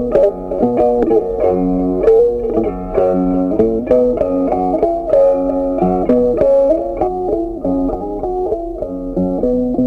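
Background music: a plucked string melody, quick notes over a steady accompaniment.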